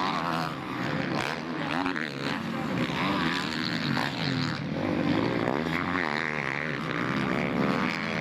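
Several motocross bikes racing, their engines revving up and dropping back over and over, the pitches overlapping.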